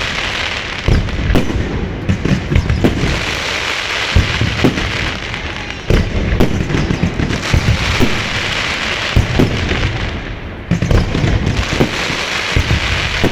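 Fireworks going off in rapid succession: many sharp bangs over a continuous dense crackle, with two brief lulls before the barrage picks up again.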